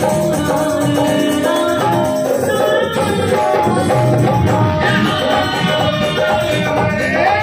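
Devotional bhajan music: a kartal, a wooden clapper with metal jingles, rattled in rhythm over a dholak drum and held melody notes.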